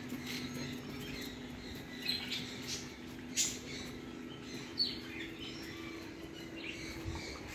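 Birds chirping in short, scattered calls, over a steady low hum.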